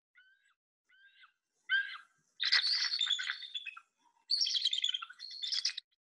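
Bald eagle calling: a few short, high whistled notes, then two longer bouts of rapid, high chittering, a giggling series almost like laughter.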